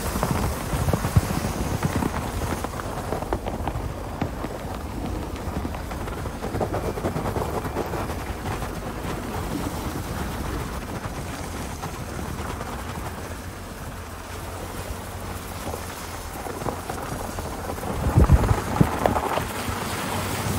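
Lexus ES creeping through deep snow on chained tyres: a steady crackling rumble of snow crunching and chains clattering under the wheels. There are a few louder thumps near the end.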